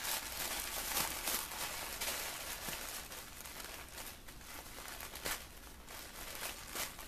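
Gift-wrap paper crinkling and rustling in irregular crackles as a wrapped present is handled and unwrapped, growing fainter toward the end.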